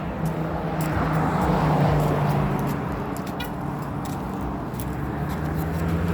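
Road traffic: a motor vehicle's steady engine hum, with a swell of tyre and road noise about two seconds in that fades as it passes.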